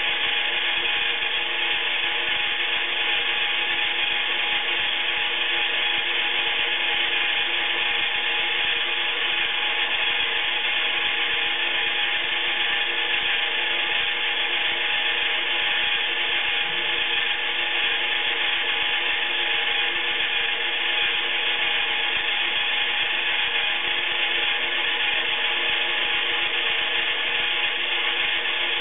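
Iriza battery-powered plastic toy washing machine running its wash cycle: the small electric motor and gearing turn the drum of water and clothes with a steady whir that does not change.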